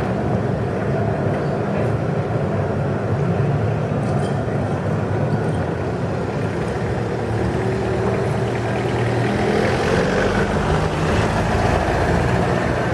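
Street traffic: a tram moving off and receding with a steady low hum, then a car driving past close, growing louder from about two-thirds of the way through.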